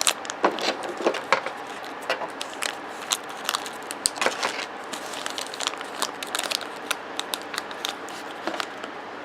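Crinkly blind-bag packaging being handled and torn open by hand, an irregular run of sharp crackles and rustles.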